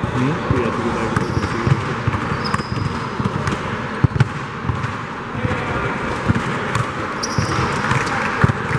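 Basketball bouncing on the gym floor around free throws, irregular knocks with a sharper thud about four seconds in, over the steady background noise of the gym.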